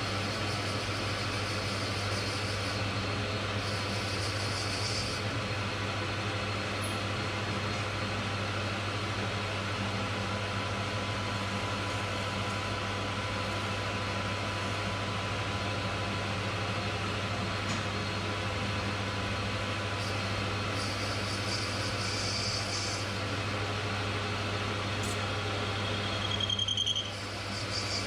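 Metal lathe running steadily with an even motor hum. A few brief patches of higher hiss come in, and near the end it briefly dips.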